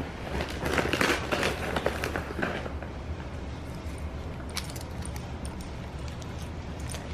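A greyhound crunching popcorn: a loud, crackly stretch of chewing for about two seconds near the start, then scattered small crunches and clicks.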